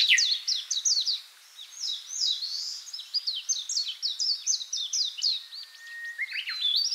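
Small songbirds chirping: a dense, unbroken run of quick high chirps, each sweeping downward, with a few short held whistled notes and a brief lull about a second and a half in.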